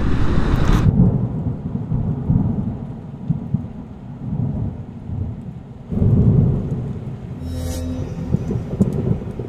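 Thunderstorm sound effect: low rolling thunder over steady rain, with a second roll of thunder about six seconds in. It follows about a second of motorcycle riding noise that cuts off abruptly.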